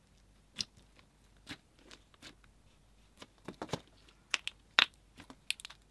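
Slime topped with sprinkles being pressed and squished by hand, giving scattered sticky pops and crackles, the loudest pop nearly five seconds in.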